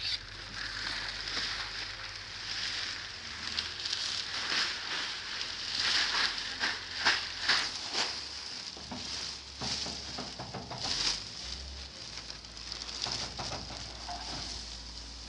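Plastic sheeting crackling and rustling as workers cut and pull it off a truck's load, with loose black bulk cargo sliding and spilling from the truck.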